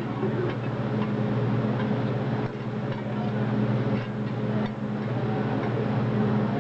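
Metal spatulas scraping and tapping on a steel teppanyaki griddle as diced meat and vegetables sizzle. It runs over a steady low hum, with scattered sharp taps.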